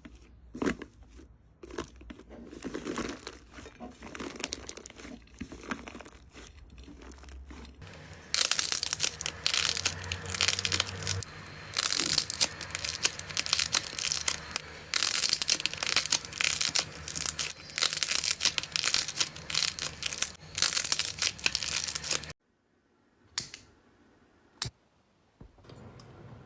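Slime being handled, with dense crackling and crinkling, quieter at first and much louder from about eight seconds in. It stops abruptly, followed by near silence and a single click.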